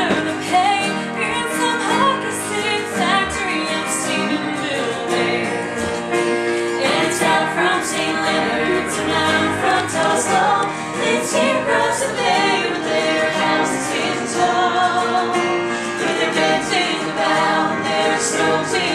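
A small group of voices singing a folk song live to electric keyboard accompaniment.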